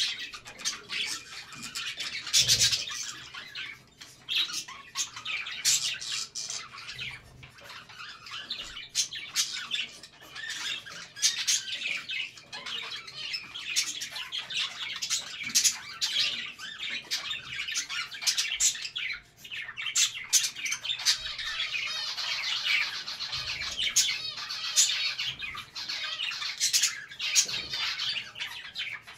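A group of budgerigars calling continuously: a busy chatter of chirps and short, sharp squawks.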